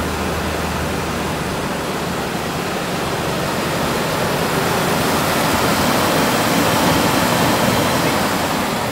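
An OBS Chevy pickup's 4.3-litre V6 running steadily just after its first start on a new battery, a loud, even rushing sound from the open engine bay.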